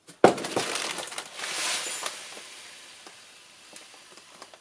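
Cat litter being scooped and poured with a half-litre measuring jug: a sharp knock just after the start, then a rattling, hissing pour of granules that swells and slowly fades.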